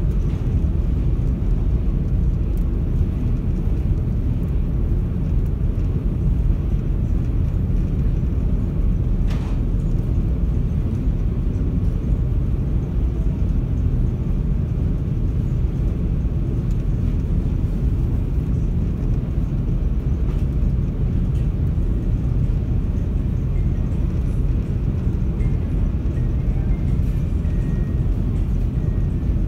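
Car ferry's engines and hull running with a steady low drone, heard from on board while the ship is underway.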